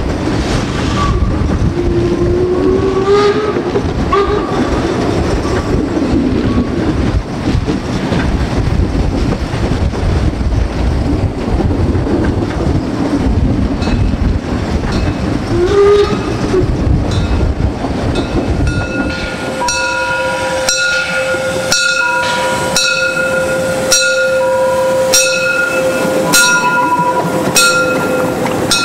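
750 mm narrow-gauge steam train running, heard from the coach: a steady low rumble of wheels on rails. From about two-thirds of the way in, a steady ringing tone joins it, with sharp metallic strikes about once a second as the steam locomotive passes close by.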